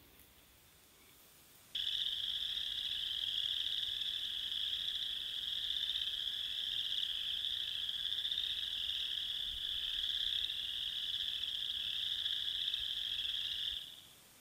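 Steady, high-pitched trilling chorus of small animals in the forest, starting abruptly about two seconds in and fading out near the end.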